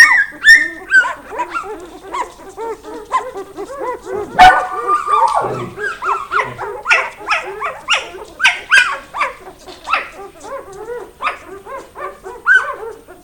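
Norwegian Lundehund puppies squealing and whining, many short high yelps overlapping several a second, with a sharp knock about four seconds in.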